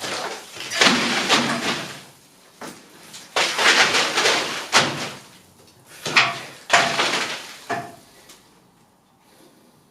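Old wall plaster breaking loose and falling in chunks: several crumbling, clattering falls, each starting sharply, dying away near the end.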